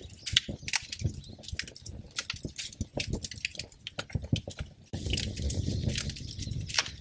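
Wood fire burning in a fireplace, crackling and popping in quick, irregular snaps. About five seconds in, a steadier low rumble of the flames joins under the crackle.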